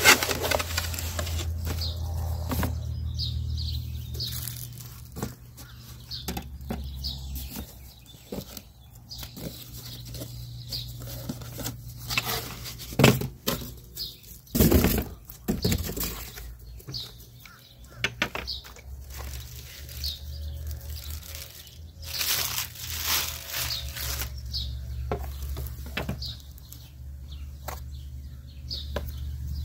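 Cardboard boxes handled during unpacking: irregular knocks, scrapes and rustling of cardboard, with a few louder bursts of rustling and flap noise.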